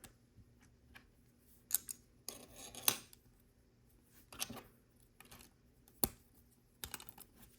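Plastic LEGO bricks clicking and clattering as they are handled and pressed together, a handful of separate sharp clicks spread out, with a brief rustle of pieces about two seconds in.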